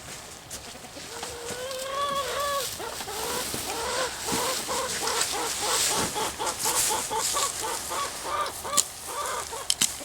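Domestic poultry calling: one drawn-out call, then a long run of short, evenly repeated calls at about three a second. A few sharp clicks come near the end.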